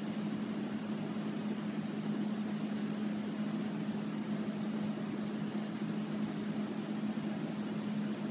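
Steady mechanical hum with a constant low drone and even hiss, unchanging throughout.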